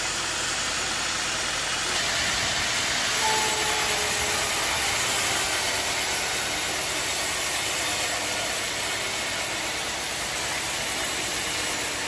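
Band sawmill blade cutting lengthwise through a large teak log, a steady rasping noise that grows a little louder about two seconds in.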